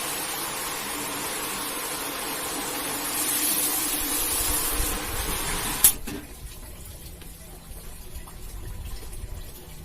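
Water spraying in a steady hiss onto a carpet being washed, cutting off abruptly with a click about six seconds in, after which only a faint low hum remains.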